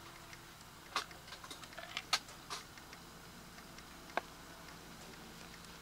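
Firewood crackling in a Winnerwell Woodlander wood stove: irregular small ticks with a few sharp pops, the loudest about a second, two seconds and four seconds in.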